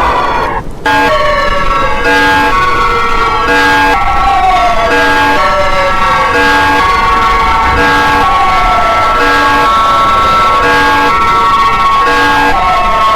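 Emergency alarm audio played in reverse: a siren-like tone gliding down in pitch every few seconds, over a layer of steady tones that switch on and off about every second and a half. A short dropout comes just under a second in.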